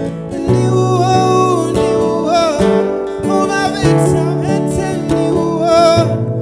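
A man singing live to his own acoustic guitar, the voice coming in about half a second in over the steady guitar accompaniment.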